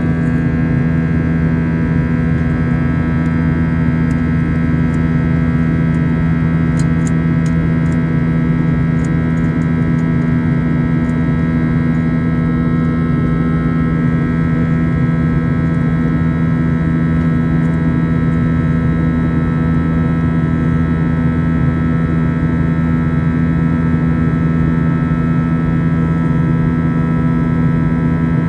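Steady drone of an Airbus A321's IAE V2500 turbofan engines heard inside the passenger cabin during the climb: a low hum with several steady tones held over the rush of air.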